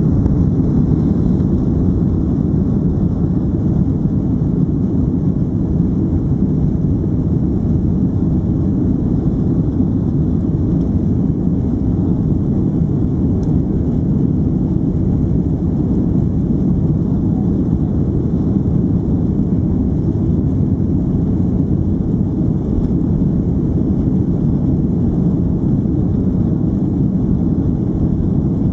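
Cabin noise of a Boeing 767-300ER during its takeoff roll: the jet engines at takeoff power and the runway rumble, heard from a seat over the wing as a loud, steady deep noise.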